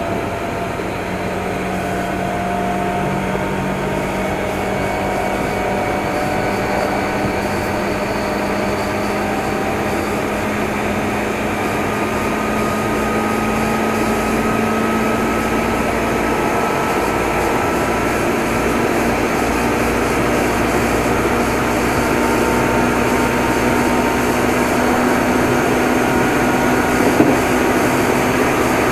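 Meitetsu 6500 series electric train running, heard from aboard motor car Mo 6461: traction motor hum and running noise, the hum slowly rising in pitch and getting a little louder as the train gathers speed.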